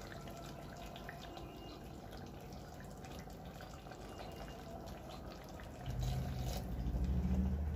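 Chicken cooking on a low flame, faintly sizzling and crackling, as a thick ground masala paste is poured and spooned onto it with soft wet drips. A low rumble rises about six seconds in.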